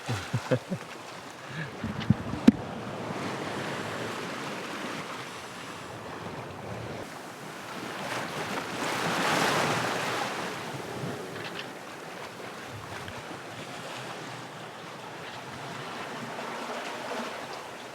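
Sea water rushing and washing around a sailing yacht under way, with wind buffeting the microphone. The rush swells to its loudest about halfway through, and a few short knocks come about two seconds in.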